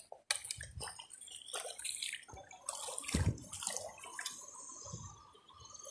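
Shallow seawater splashing and dripping as someone wades along the shore, in irregular small splashes.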